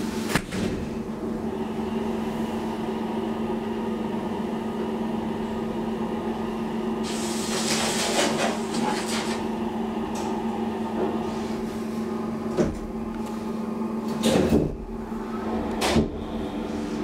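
1974 DEVE hydraulic elevator in travel: a steady low hum runs throughout, with a stretch of rushing noise about eight seconds in. A knock comes about twelve and a half seconds in and two more clunks near the end, as the car reaches the platform landing.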